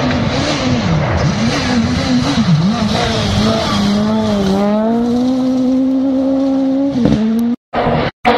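Suzuki Swift rally car's engine revving hard, its pitch swooping up and down with gear changes and throttle lifts for the first few seconds. It then climbs and holds a steady high note under full throttle. The sound cuts out abruptly twice near the end.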